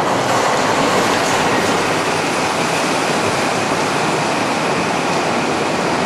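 A large motor vehicle passing close by in a narrow road tunnel: a steady rumble of engine and tyres on the wet road, echoing off the tunnel walls.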